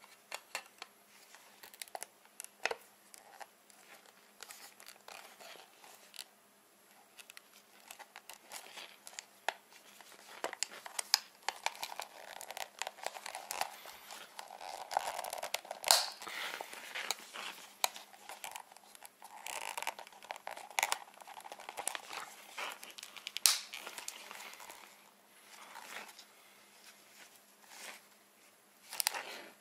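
Plastic clicks, scraping and crinkling as a replacement lens is pressed into a motocross goggle frame and the frame is flexed and handled. Scattered sharp clicks, with denser handling noise through the middle.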